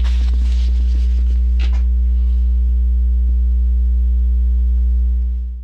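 Loud steady electrical mains hum, a low buzz with its overtones, running under the recording, with a few rustles of a paperback book being handled in the first two seconds. The hum fades out just before the end.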